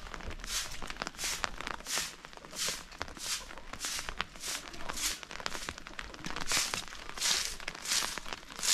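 Footsteps at a steady walking pace, about three steps every two seconds.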